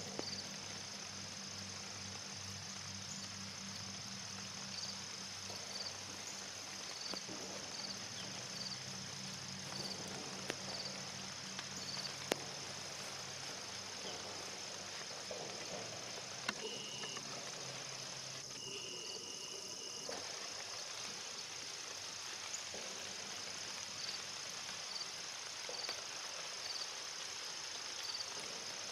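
A steady, high-pitched chorus of field insects trilling in wet grassland, with scattered faint ticks over it.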